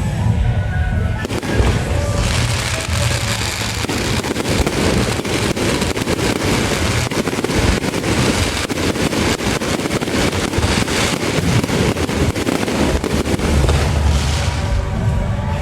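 Fireworks going off in a dense crackle of rapid bangs, starting about a second and a half in and easing off near the end, over procession music with pitched instrument tones.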